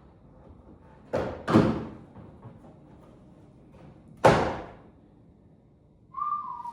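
Plastic rocker panel cover being pulled off a car's body, its clips letting go with sharp knocks: two close together about a second in, and a louder one after about four seconds.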